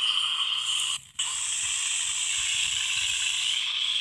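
Handheld radio giving out a steady, high static hiss that drops out for a moment about a second in.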